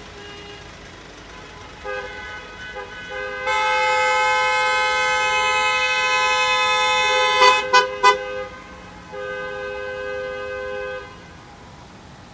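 Car and van horns of passing vehicles honking: overlapping long blasts begin about two seconds in and grow louder, three short toots come a little past halfway, then one more long blast cuts off near the end, over faint engine and tyre noise.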